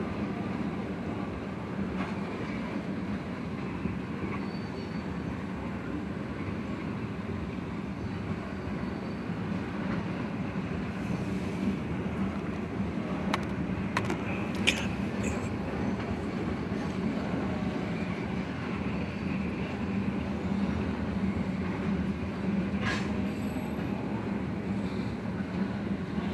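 Freight train of tank cars and covered hopper cars rolling past: a steady rumble of steel wheels on rail, with a few brief high wheel squeals about halfway through and again near the end.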